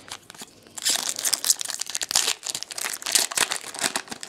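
Foil trading-card pack wrapper crinkling as it is handled and opened by hand. A dense crackly rustle starts about a second in and eases off near the end.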